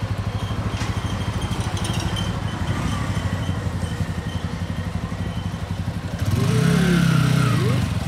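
TVS Apache single-cylinder motorcycle engine idling with a steady low pulse, then revved once about six seconds in, the pitch rising and falling back as the throttle is blipped and released.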